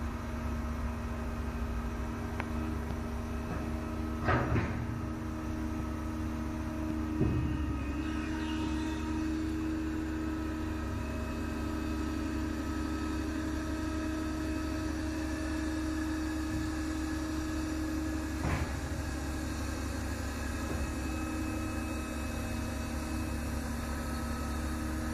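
Crane engine running steadily with a low hum while hoisting a load, with a few brief knocks.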